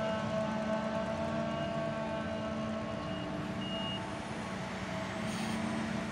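John Deere self-propelled forage harvester chopping maize, with a tractor pulling a silage trailer alongside: a steady machinery drone with a held whine over it.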